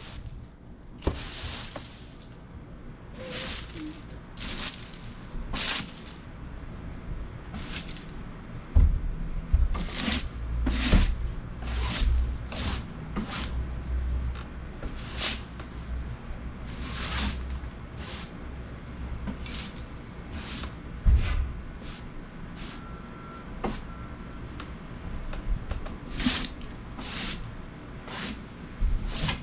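Broom bristles swept across dry wooden deck boards in repeated hissing strokes, roughly one a second. A low rumble runs under the strokes for several seconds in the middle.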